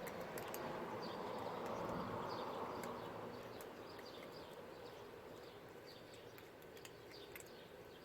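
Outdoor ambience: small birds chirp over and over above a low rushing noise that swells over the first two seconds or so and then fades. Faint clicks are scattered throughout.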